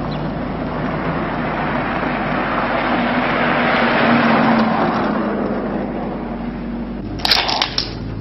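A motor vehicle passing by, its noise swelling to a peak in the middle and fading away. Near the end comes a short run of sharp crackling clicks.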